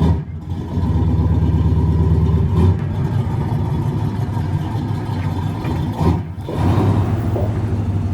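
A motor running steadily with a deep hum, its sound shifting abruptly twice, a little under three seconds in and about six seconds in.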